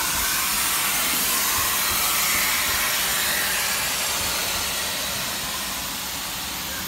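Locomotive hissing steadily, a little louder in the middle and easing slightly near the end.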